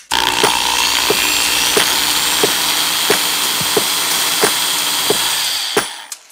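Electric drill spinning a 5 mm steel rod pressed into a 3D-printed plastic part, running steadily with a whine and stopping shortly before the end: the rod is being sunk into the plastic by frictional heat. A regular tap sounds about every two-thirds of a second under it.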